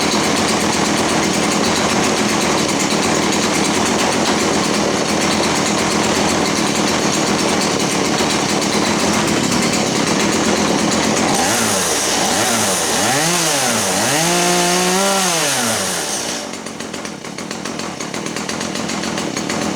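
Chainsaw running at full throttle, then revved up and down about four times, and settling to a quieter, lower run near the end.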